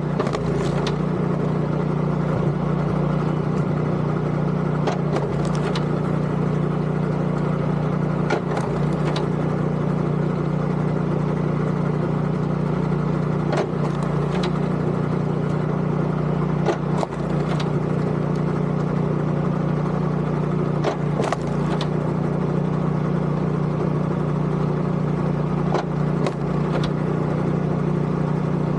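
Log splitter's engine running steadily, with sharp cracks every few seconds, often in pairs, as wood splits.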